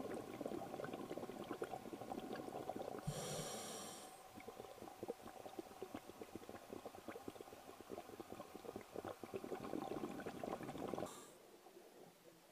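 Scuba diver's regulator underwater: long stretches of crackling, bubbling exhalation, with a short hissing inhalation about three seconds in and another brief hiss about eleven seconds in, after which the bubbling stops.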